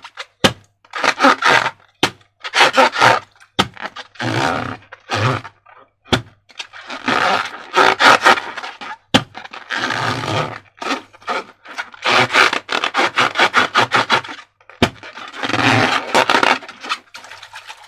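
Slime being mixed and squished, giving repeated bursts of wet crackling and squelching, with single sharp clicks now and then between the bursts.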